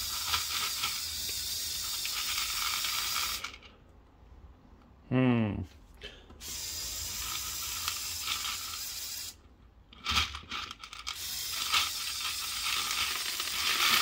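Small Lego Power Functions electric motors whirring as they drive the excavator's linear actuators, in three start-stop runs of a few seconds each with short silences between. About five seconds in, a brief sound slides down in pitch, and a few clicks come as the last run starts.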